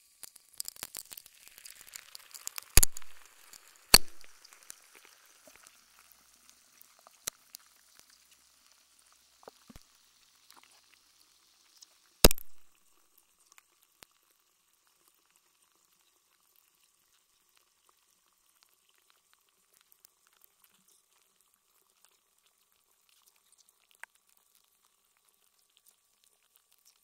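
Block of ice melting in water, heard through contact microphones frozen inside it. A dense fizzing crackle fills the first few seconds, with three sharp cracks about three, four and twelve seconds in. It then thins to scattered faint ticks and pops.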